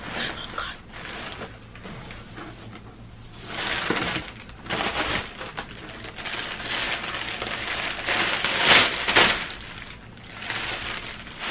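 Plastic packaging being handled, rustling and crinkling in several bursts, loudest about two-thirds of the way through.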